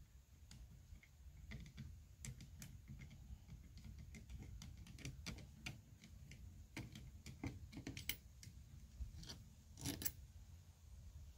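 Faint, irregular light clicks and taps, with a close double click about ten seconds in as the loudest, over a low steady rumble.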